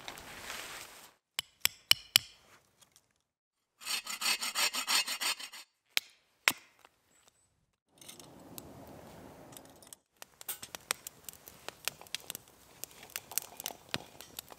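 A string of short camp sounds: a tarp rustling, a few sharp clicks, and about two seconds of a hand saw cutting wood in quick strokes. Then a wood fire burning in a small folding stove, with many sharp crackles and snaps in the last few seconds.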